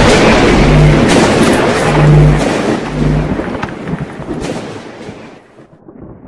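Cinematic logo-reveal sound effect: a deep boom and rumble with a few short low hum pulses, fading away over about five seconds to near silence.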